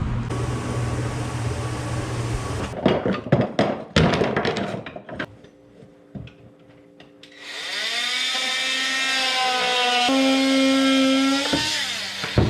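An electric power tool spins up with a rising whine, runs steadily at high pitch for about four seconds with a small change in pitch partway, then winds down. Before it, a steady low hum with hiss gives way to a run of sharp clicks and knocks.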